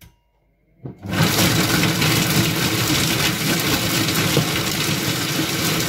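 Monsieur Cuisine Connect food processor chopping soup vegetables (carrots, leek, celery and onion) at speed 6: its blade runs loud for about five seconds, starting about a second in and stopping near the end.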